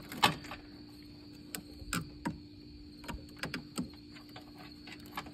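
Scattered small clicks and taps of a test light's probe tip and handle against the plastic fuse box and metal terminals, the loudest just after the start, over a faint steady hum.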